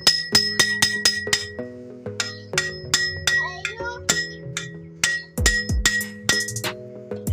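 Background music with a steady percussive beat, bell-like chiming notes and sustained chords; deep bass kicks that fall in pitch come in about five seconds in.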